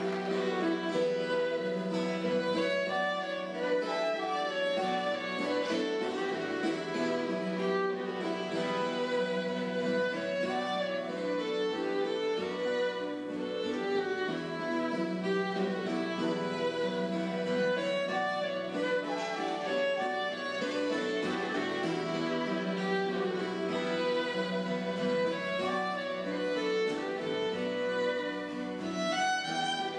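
Celtic band playing a traditional Irish tune, the fiddle carrying the melody over plucked-string accompaniment, with a steady low note sounding beneath.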